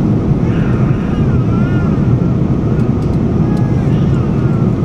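Airliner cabin noise: a steady, even roar of engines and airflow heard from a passenger seat, with faint passenger voices behind it.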